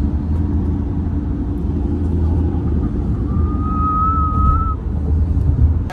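Road noise inside a moving car on a highway: a steady low rumble of tyres and engine. About halfway through, a thin high tone rises slightly and holds for about a second and a half.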